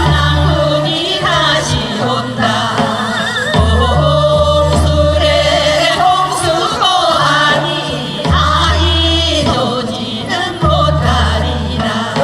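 Korean traditional-style singing with heavy vibrato, over an accompaniment of long, steady bass notes that come in blocks every few seconds.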